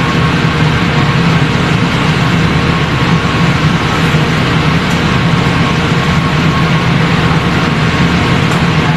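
Steady low machinery hum with an even hiss over it, from dish washing by hand under a running tap at a stainless-steel sink. A couple of light clinks.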